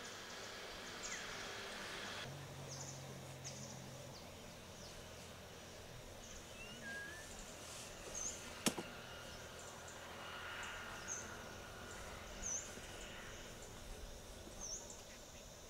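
Faint outdoor evening ambience: a steady hiss of insects with scattered short, high chirps. About halfway through comes a single sharp click, the loudest sound, as the camper handles gear by his chair.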